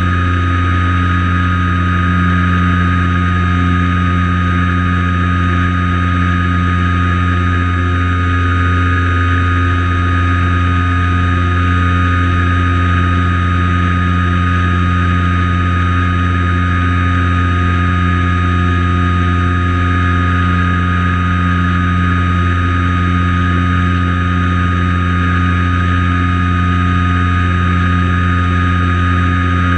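Light plane's piston engine and propeller running steadily in flight, a constant even drone picked up by a camera mounted on the plane, with wind rush over it.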